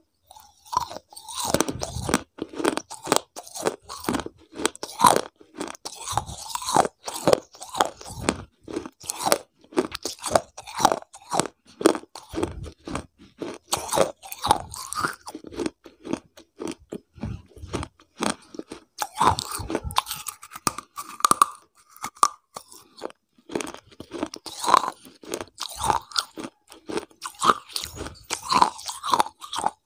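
A person chewing and crunching a crunchy beige food right up against a clip-on microphone. The wet crackle and crunch come irregularly, several times a second.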